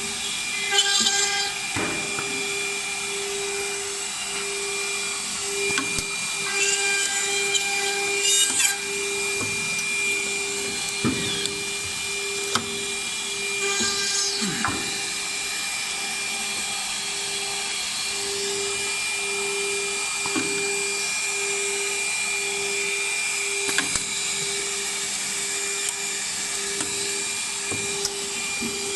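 Automatic drilling and tapping machine for wooden brush backs running: a steady motor hum with a pulsing tone and a higher whine. Short hisses and sharp clacks break in now and then.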